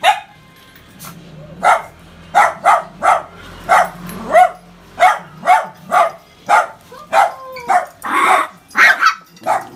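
Shiba Inu barking repeatedly, short sharp barks coming about two a second after a single bark at the start.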